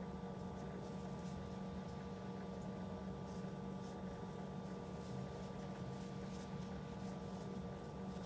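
Faint scratchy rustles of yarn being pulled and worked with a metal crochet hook, a few soft ticks scattered through, over a steady background hum.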